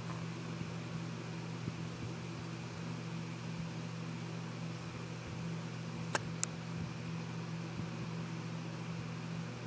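A steady low mechanical hum over a light hiss, with two sharp clicks about six seconds in, a fraction of a second apart.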